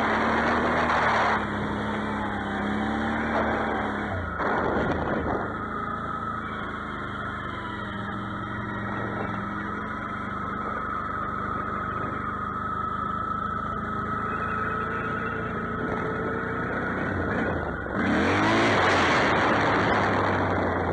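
Can-Am Outlander 650 XMR ATV's V-twin engine running as it is ridden, throttling up and rising in pitch right at the start and again about eighteen seconds in. Between those it runs steadily with a thin steady whine.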